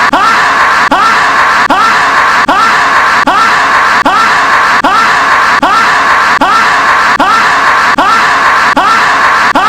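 Loud, harsh, distorted scream-like noise repeating as a steady loop, with a short rising squeal and a brief drop in loudness about every 0.8 seconds.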